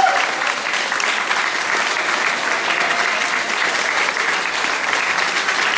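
A crowd applauding steadily, many people clapping at once.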